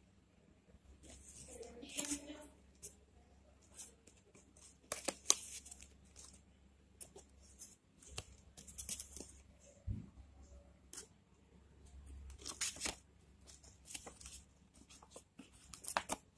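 Stiff paper and card handled by hand: irregular rustles and crinkles as folded paper flaps are pulled open and card panels are flipped.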